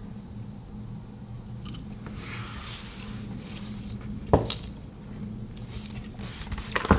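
Metal Swiss Army knives being handled, with light rustling and two sharp metallic clicks, one midway and a louder one near the end.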